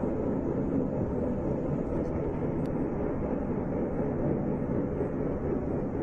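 A steady, low outdoor rumble without distinct events, picked up on a phone filming a large fire at a gas plant from far away.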